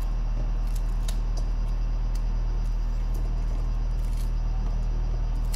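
Corn kernels being pried off the cob by thumb into a stainless steel bowl, giving a few scattered faint crisp clicks. A steady low hum underneath is louder than the clicks.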